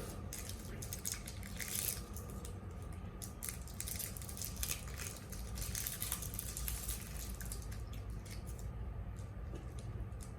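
Eating sounds: many soft, wet clicks and smacks of chewing, thinning out after about seven seconds, over a steady low hum.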